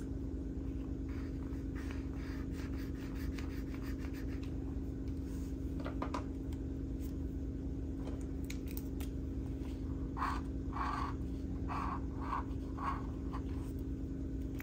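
Acrylic paint marker drawing on kraft paper: a run of about six short scratchy strokes about two-thirds of the way in, over a steady low hum.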